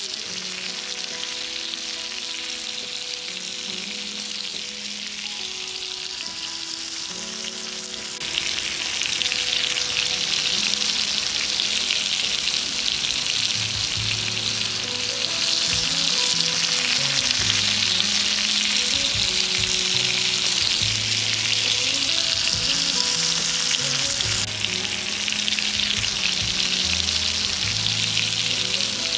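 Red snapper (sankara) pieces frying in shallow oil on a flat iron griddle: a steady sizzle that steps louder about eight seconds in and again about fifteen seconds in. Soft background music with slow, stepping notes plays underneath.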